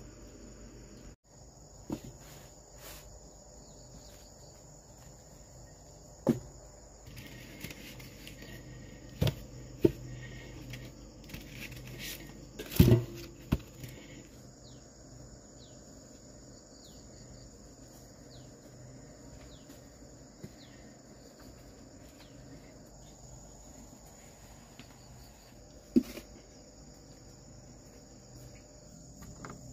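Steady high-pitched chorus of insects, with a handful of sharp knocks scattered through, the loudest a short cluster about halfway through.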